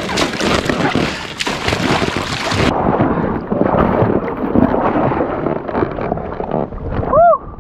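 Stream water splashing and rushing against a balloon raft drifting in the current, with wind buffeting the microphone. A short squeak that rises and falls in pitch comes near the end.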